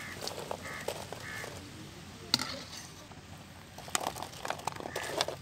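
Freshly deep-fried cauliflower pieces tipped from a wire spider strainer onto a steel plate: one sharp tap of metal on metal about two seconds in, then a run of light clicks and clatter from about four seconds in. A bird calls a few short notes in the first second or so.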